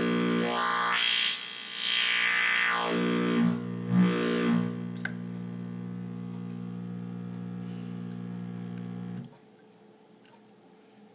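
Analog synthesizer oscillator holding a low note through a Steiner voltage-controlled filter. The cutoff is swept up and down several times in the first few seconds, then left steady. The sound is slightly clipped by the amplifier, so it comes out harsher and more distorted than intended, and it cuts off suddenly about nine seconds in, followed by a few faint clicks.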